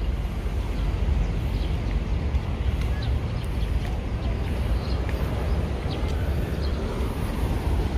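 Outdoor city-park ambience: a steady low rumble with a few faint, short bird chirps scattered through it.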